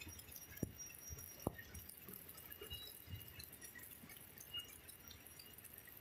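Faint churning and splashing of water in a poultry screw pre-chiller, agitated by air and the turning auger blades, with two short sharp knocks about half a second and a second and a half in.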